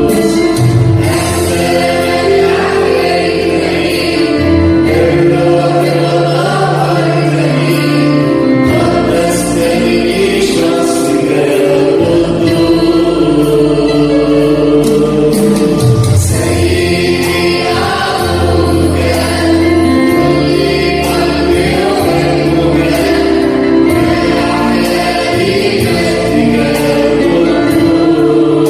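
Choir singing an Arabic church hymn over instrumental backing with long held bass notes.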